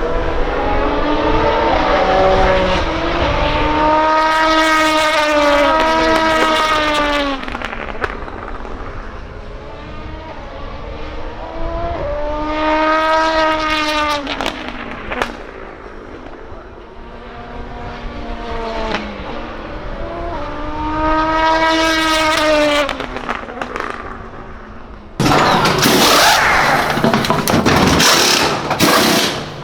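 Race cars passing at speed one after another, each engine note rising and then dropping in pitch as it goes by, with three loud passes and fainter ones between. Near the end the sound switches abruptly to a loud, harsh rattling noise.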